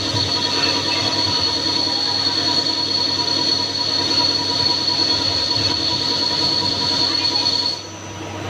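Wintec TC15 CNC lathe running, with a steady high-pitched whine over machine noise; near the end the whine cuts off and the sound drops.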